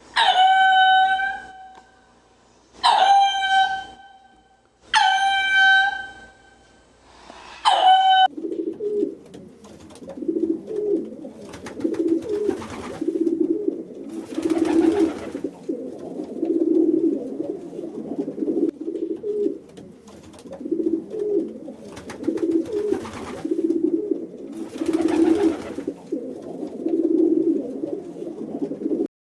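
Animal calls: four loud, even-pitched calls about a second each, then a long run of soft, low calls repeated about once a second, like cooing.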